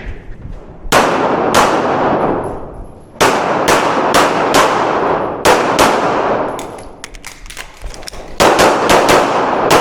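Semi-automatic handgun fired rapidly in an IPSC stage run: quick strings of shots, each with a long echoing decay. There are pauses about 2.5 s and 7 s in, and a fast burst near the end.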